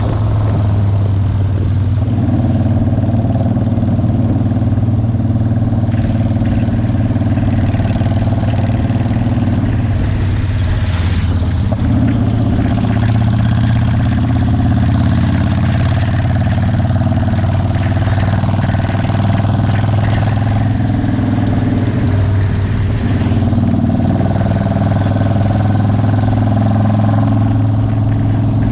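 Cruiser motorcycle engine running steadily at highway cruising speed, heard from the rider's seat over a steady rush of wind and road noise. The engine note shifts briefly about ten seconds in and again a little past twenty seconds.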